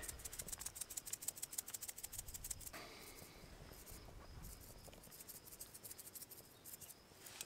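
Salt and pepper being dispensed over mashed potato from a small hand-held seasoning container: a faint, fast, dry clicking for about two and a half seconds, then scattered clicks.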